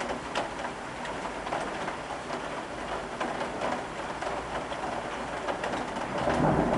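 Heavy rain falling, with many individual drops tapping sharply against a window pane. The rain sound grows louder and fuller near the end.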